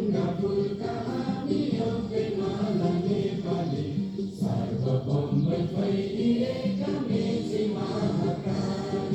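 A group of students singing together in unison, a slow chant-like song sung in held phrases with short breaks between them.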